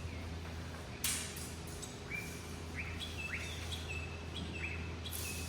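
A bird calling repeatedly with short chirps that rise sharply and then hold, about two a second, over a steady low hum.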